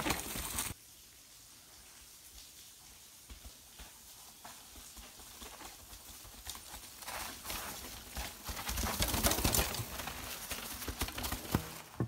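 Mountain bikes clattering over a rocky trail: a dense rattle of tyres and bike over rocks cuts off abruptly under a second in. Then a rider approaches, and the irregular knocks build to their loudest about nine to ten seconds in before dropping away.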